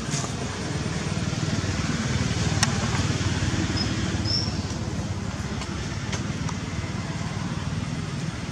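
Steady low rumble of outdoor background noise, with a brief high chirp about four seconds in and a faint click or two.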